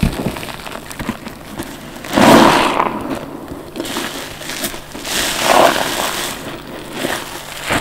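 A wet, soapy sponge soaked with cleaner, baking soda and detergent being squeezed by hand: two long squelching squeezes, about two and five seconds in, with small crackles of foam between them.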